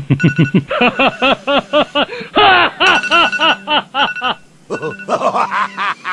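Background music: steady held tones under a quick run of short notes, each bending up and down in pitch.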